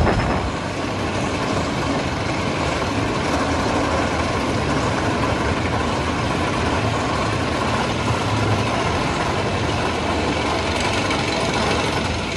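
Chain lift of the Storm Chaser RMC hybrid roller coaster hauling a train up the lift hill: a steady mechanical running and clatter from the chain and lift machinery.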